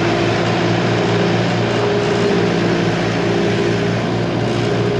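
A vehicle engine running steadily at an even speed, a constant low hum with no change in pitch.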